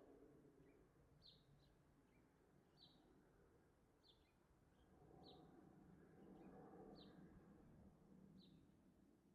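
House sparrow chirping faintly: single short chirps repeated about every second and a half, over a low background hum.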